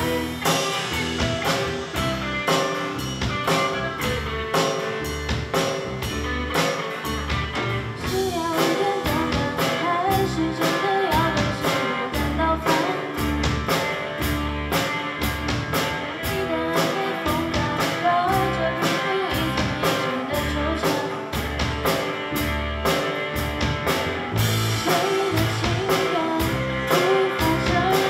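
Live rock band playing a song: electric guitar, bass guitar and a drum kit keeping a steady beat, with a singer's voice over most of it.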